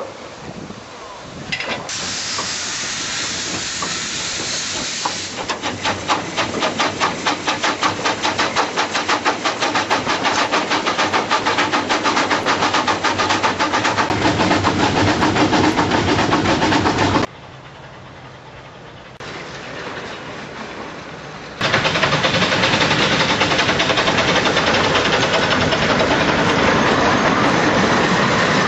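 Miniature steam locomotive: a loud steam hiss a couple of seconds in, then chuffing exhaust beats that quicken as it gets under way. After a sudden drop in level the sound comes back as a steady rush of the train running.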